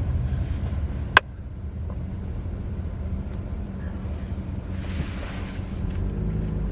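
Steady low rumble of a car on the road, heard from inside the cabin while driving, with a single sharp click about a second in.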